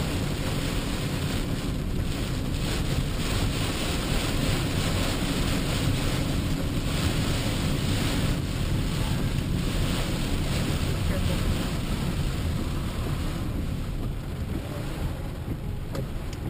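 Steady rushing noise of storm wind and the road heard from inside a moving car, surging now and then and easing slightly near the end.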